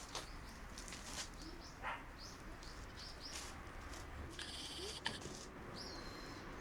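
Shiba Inu puppies squeaking and whimpering: short, high squeaks scattered throughout, with a longer whine near the end that falls and then holds.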